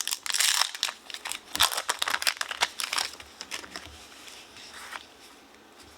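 Crinkling of a Pokémon card pack's foil wrapper being handled, busiest in the first three seconds and thinning out after that.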